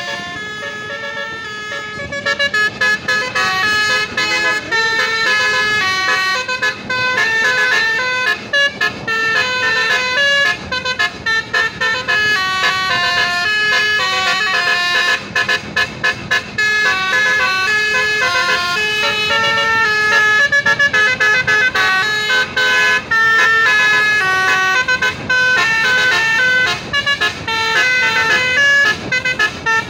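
Bus Basuri telolet horn, a multi-trumpet musical air horn, playing a long, fast melody of short stepped notes.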